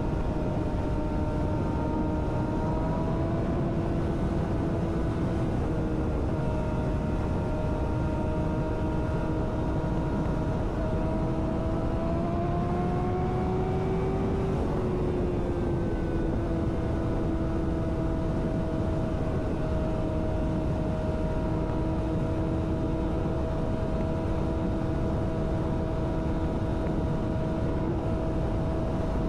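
Yamaha sportbike engine pulling at highway speed, a steady drone whose pitch creeps up and then drops suddenly about halfway through, before holding even. Heavy wind rush on the microphone lies under it throughout.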